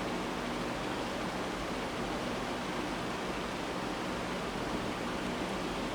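Steady, even hiss of background noise with nothing else standing out.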